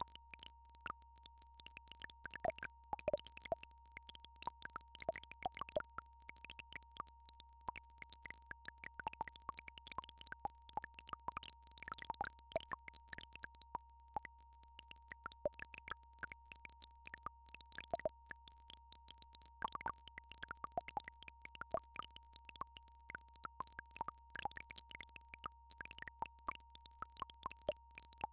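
Synthesized frequency-tone track: a steady electronic tone a little below 1 kHz held over a low steady drone, with short irregular clicks scattered throughout.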